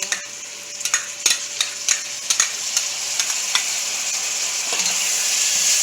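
Onions, garlic, pepper and green seasoning frying in oil in a pot, sizzling steadily, with a spoon clicking against the pot as it is stirred over the first few seconds. The sizzle grows louder toward the end.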